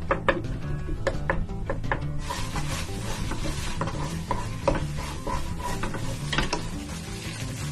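Utensil scraping and stirring rice in a crab shell, with a few sharp taps in the first two seconds, then continuous rasping strokes, over background music.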